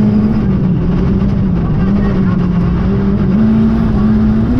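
Renault Clio III RS rally car's 2.0-litre four-cylinder engine held at high revs, heard from inside the cabin, over a steady rush of tyre and gravel noise on a dirt road. The engine note sags slightly after a second or so, then climbs again toward the end.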